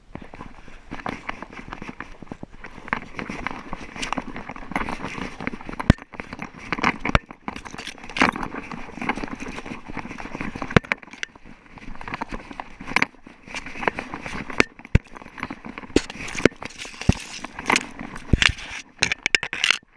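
Dry grass stems and brush crackling and scraping right against the camera as it moves low through scrub, with many sharp clicks and crunches from loose rocks underfoot.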